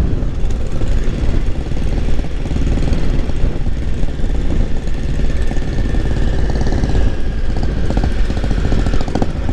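Triumph Tiger 955i's three-cylinder engine running steadily at road speed, with wind rush, heard from the rider's seat.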